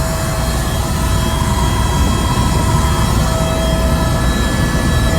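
Helicopter in flight: steady engine and rotor noise, a low rumble with a steady whine on top.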